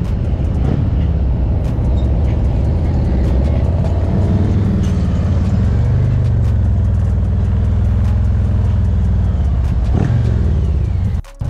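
Harley-Davidson motorcycle's V-twin engine running at low speed through a parking lot, a steady deep rumble that swells for a few seconds in the middle.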